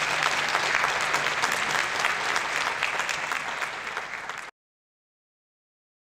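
Audience applauding. The applause cuts off suddenly about four and a half seconds in, leaving silence.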